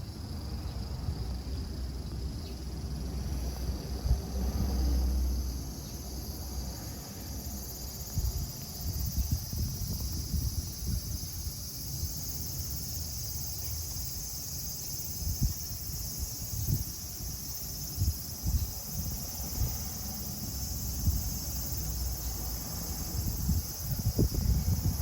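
Summer insects droning steadily and high-pitched throughout, with irregular low rumbles and soft bumps on the microphone beneath it.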